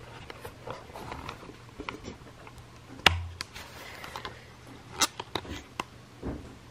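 Handling noise from a handheld compact camera: scattered clicks and rubs, with a sharp knock about three seconds in and another about five seconds in.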